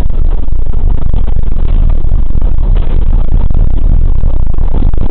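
A vehicle's engine and tyres on a wet, muddy road, heard through a dashcam inside the cab: a loud, steady low rumble.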